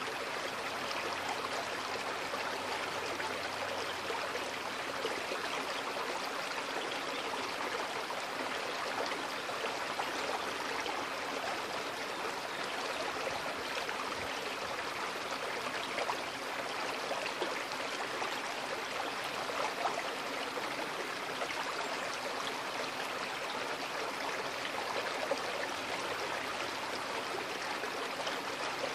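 Small shallow creek flowing over stones, a steady rush of running water with small splashy flickers in it.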